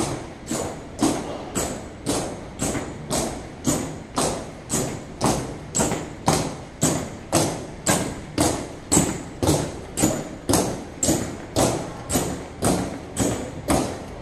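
Honor guard marching in step: steady, evenly spaced boot strikes, about two a second, each a sharp thud with a bright click on top.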